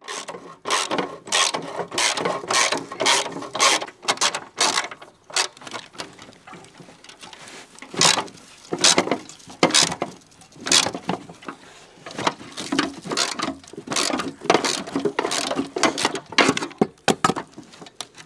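Socket ratchet wrench clicking in quick runs of sharp ticks as half-inch bolts are backed out of a rusted steel lawnmower deck.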